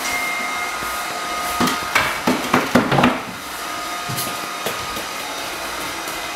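Robot vacuum cleaner running with a steady whirring hum. Between about one and a half and three seconds in, a quick series of knocks and rustles sounds over it.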